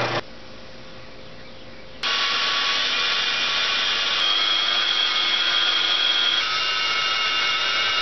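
12-inch bandsaw cutting through a thick glued-up pine 2x4 blank, slicing a thin slab off its back: a loud, steady whine of blade in wood that starts suddenly about two seconds in. Before that, a quieter steady hum of a spindle sander.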